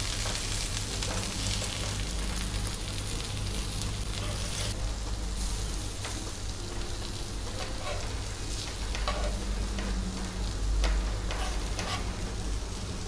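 Besan- and rice-flour-coated drumstick pods sizzling steadily as they shallow-fry in oil in a flat pan, with a few soft scrapes and taps of a metal spatula as the pods are flipped to fry the second side, over a steady low hum.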